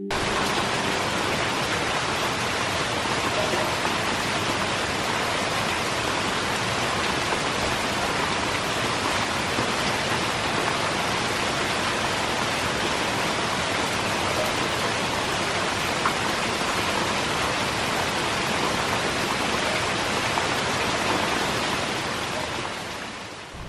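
Heavy rain pouring down, a steady, dense hiss that fades out near the end.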